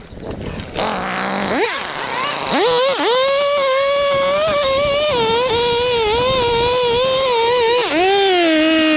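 Chainsaw engine blipped up twice, then held at high revs for about five seconds with small dips in pitch, dropping back near the end.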